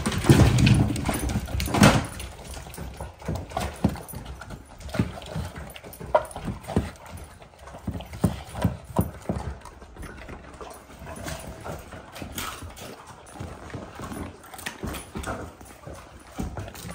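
Rottweilers' claws clattering on a wooden floor as they rush to their food, loudest in the first two seconds, then the dogs eating raw chicken and eggs from stainless steel bowls: a steady run of crunches and clinks.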